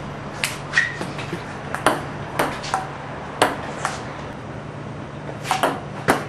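Ping-pong ball bouncing: a dozen or so sharp, irregular clicks, with a quick run of four near the end, over a steady low hum.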